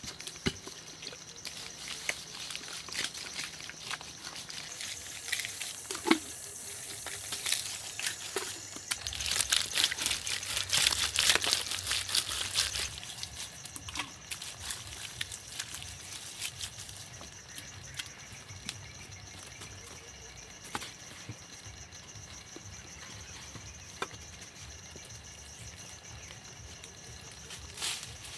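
Water pouring and splashing for a few seconds about a third of the way through, over a steady high drone of forest insects, with scattered small knocks and taps.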